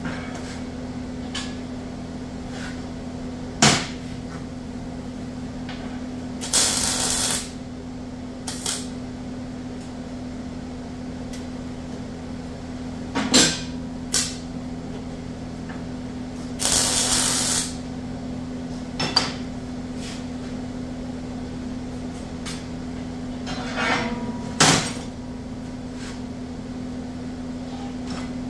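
Metal-working sounds on a steel diamond-plate toolbox over a steady machine hum: sharp metal knocks and clanks now and then, three of them loud, and two short hissing bursts of about a second each.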